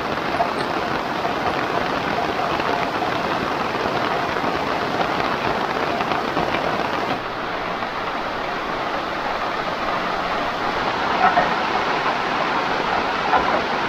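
Heavy rain falling in a steady, even hiss, with a couple of slightly louder taps near the end.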